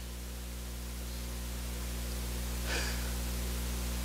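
Steady electrical hum and hiss from the church sound system's microphone channel, slowly growing a little louder, with a soft breath about three seconds in.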